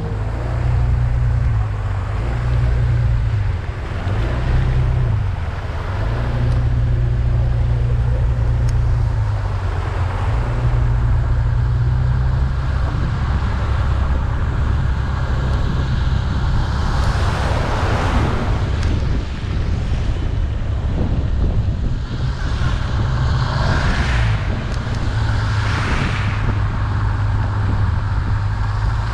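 Motor scooter engine running while riding, its low hum shifting up and down in pitch with the throttle, under a steady rush of wind on the microphone. A louder rushing swell comes twice in the second half.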